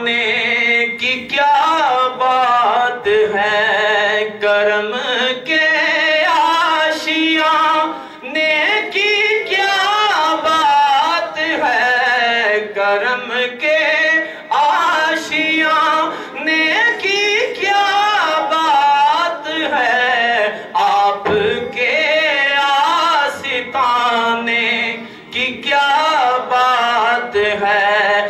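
A man singing a naat, an Islamic devotional song, solo into a microphone, in long, bending, held melodic lines with short pauses for breath.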